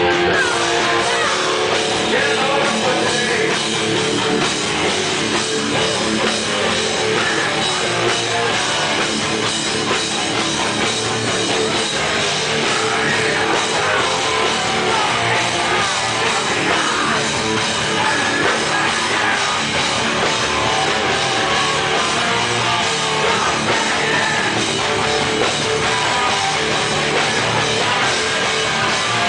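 Hardcore punk band playing live at full volume: distorted electric guitars and drum kit, steady and dense throughout.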